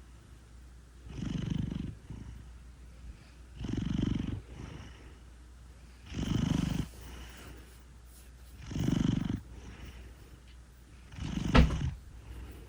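Large house cat asleep and snoring: five rhythmic snores about two and a half seconds apart, each lasting under a second, over a faint low purr. The last snore is the loudest, with a sharp catch in it.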